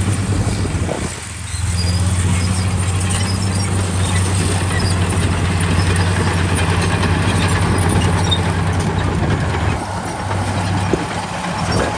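Heavy diesel construction machine engine running steadily. It drops briefly about a second in and eases off near the end.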